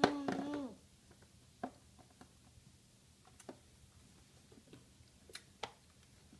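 A child's held sung note ends with a falling pitch within the first second, then quiet with a few light, scattered taps and clicks of small toys being handled.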